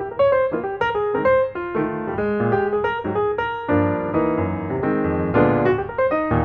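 Background piano music: a steady run of struck notes, a melody over chords.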